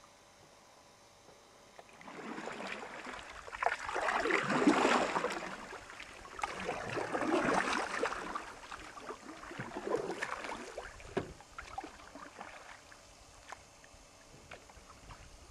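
Canoe paddles dipping and pulling through calm lake water, in swells of splashing every two to three seconds, with a few sharp knocks. Starts about two seconds in and dies down near the end.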